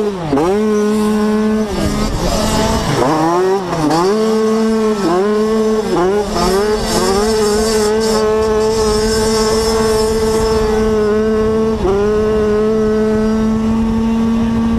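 85cc two-stroke dirt bike engine at racing revs, heard from on board. Its pitch drops and climbs again several times in the first six seconds as the rider comes off and back on the throttle through a turn. It then holds high and steady down the straight, with one brief dip about twelve seconds in, like a gear change.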